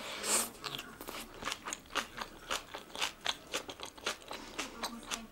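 Close-miked chewing of young-radish (yeolmu) kimchi bibimbap, with a crisp crunch at each chew, about three or four a second. There is a louder, noisier bite just after the start.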